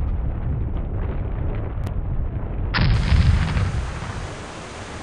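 Geyser eruption sound effect: a deep rumble that breaks, about three seconds in, into a sudden loud gush of water, settling into a steady rushing hiss.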